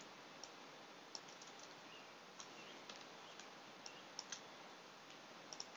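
Faint, irregular clicks of a computer keyboard and mouse over a low steady hiss.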